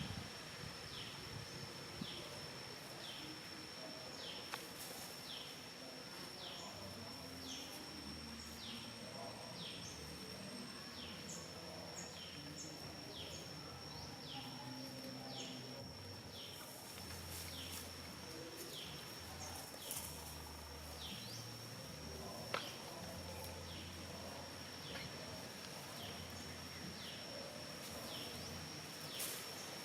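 Outdoor nature ambience: a steady high insect drone with a short falling chirp repeated a little more than once a second, over a faint low rumble. A single sharp click about two-thirds of the way through.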